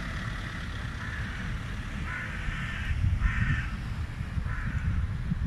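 Steady low outdoor rumble of traffic and wind, with three short, harsh calls about two, three and four and a half seconds in.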